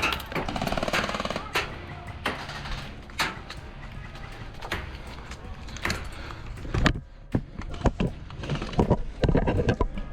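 Airsoft gunfire: scattered sharp pops, with a quicker run of shots near the end.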